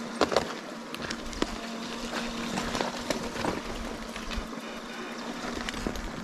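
Mountain bikes being pushed and ridden through a shallow rocky creek: scattered knocks, clicks and rattles of the bikes and splashes over a steady hiss. The loudest knocks come about a quarter second in.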